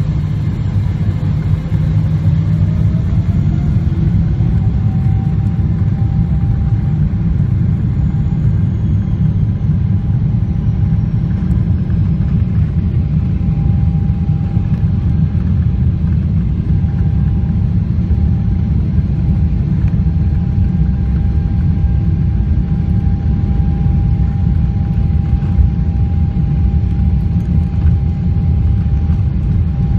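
Boeing 777 jet engines spooling up for takeoff, heard from inside the passenger cabin. A whine rises in pitch over the first few seconds and then holds steady over the heavy, continuous rumble of the takeoff roll.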